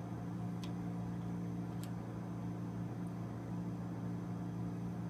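Steady low hum of room background noise, with two faint light clicks in the first two seconds.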